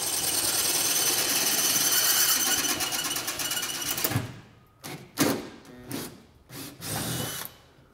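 Cordless drill drilling out rivets in the aluminium underside of a Cessna 172 wing: one continuous run of about four seconds, then several short bursts.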